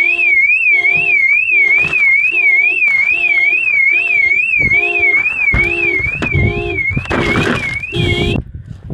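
Car alarm sounding, set off by a car window being broken in to reach keys locked inside: a high warbling siren over a lower beeping tone that pulses about one and a half times a second. It cuts off suddenly near the end.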